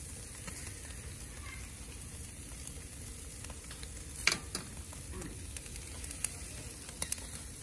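Whole mackerel scad sizzling steadily on a charcoal grill, with a few sharp pops, the loudest about four seconds in.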